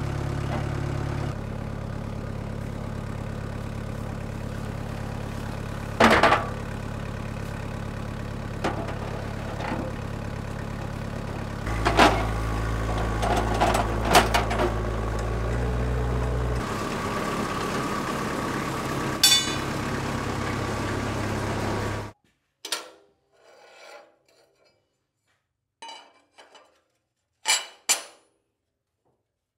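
Vermeer mini skid steer engine running, its pitch stepping up and down a few times, with loud clanks of a steel welding table being handled about six seconds in, again around twelve to fourteen seconds, and once more near nineteen seconds. About twenty-two seconds in the engine stops abruptly and only a few light clicks of steel plates being set into the table's grid remain.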